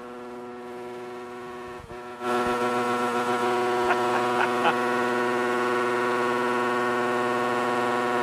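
A Yamaha YZ250F four-stroke motocross bike's engine revved and held at high revs, a steady unbroken note. It gets much louder about two seconds in as the throttle is opened further.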